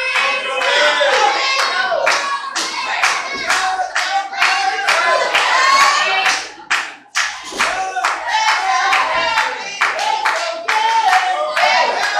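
Small wrestling crowd clapping over and over while spectators shout and chant, with high voices among them; the noise drops out briefly about seven seconds in.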